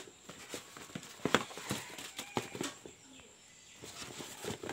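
Shoes and a cardboard shoebox being handled by hand: irregular knocks and taps of the shoes against the box, with rustling, the loudest knock about a second and a half in.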